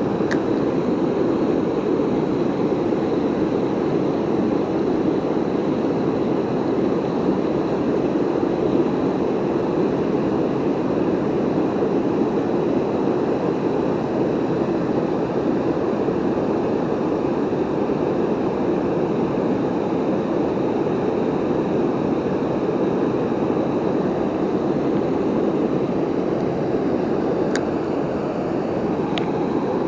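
Waterfall on a river rushing steadily, an even noise of falling water with no let-up. A few faint clicks show near the start and twice near the end.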